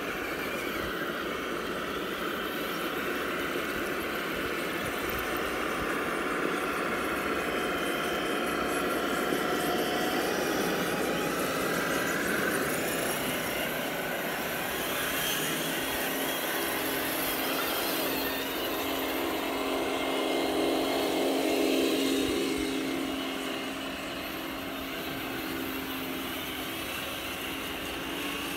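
Electric motors and gearboxes of several radio-controlled scale crawler trucks whining as they drive through a muddy puddle, the pitch rising and falling with the throttle. About three-quarters of the way through, one whine gets louder and falls in pitch.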